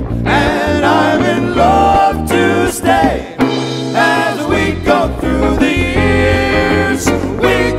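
Male vocal quartet singing in close four-part harmony, with electric guitars and a drum kit behind them.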